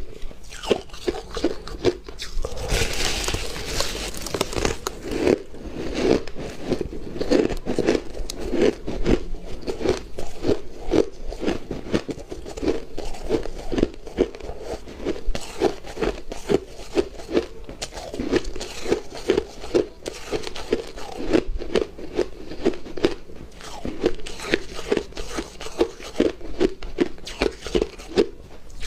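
A person chewing shaved, refrozen ice, crunching it in a steady rhythm of about two to three crunches a second, with a louder, sharper bite about three seconds in.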